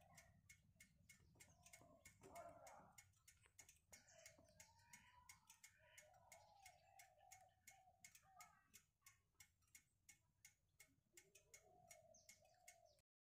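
Near silence: faint steady ticking, about four ticks a second, with faint wavering chirp-like tones over it, cutting off near the end.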